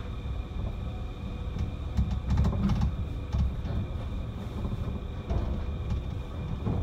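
Rubber-tyred Rokko Liner guideway train running, heard from inside the cabin: a steady low rumble with scattered clicks and knocks as it passes through a switch.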